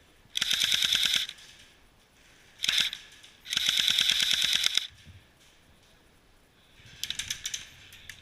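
Airsoft gun firing rapid full-auto bursts: three loud bursts of quick clicking shots, the longest about a second and a half, then a shorter, fainter burst near the end.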